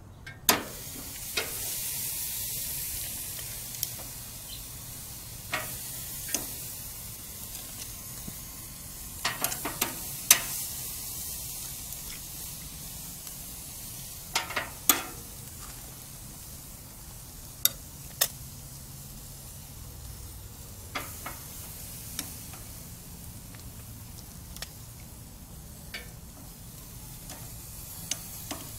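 Marinated beef short ribs sizzling as they are laid one by one onto a hot gas grill's grate, the hiss strongest in the first few seconds. Metal tongs click sharply against the grate again and again.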